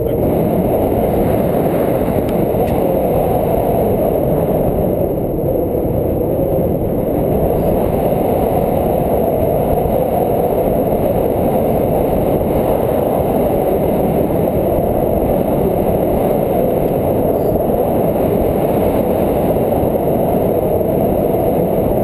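Wind rushing over an action camera's microphone during a tandem paraglider flight: a loud, steady, low rumble with no other sound over it.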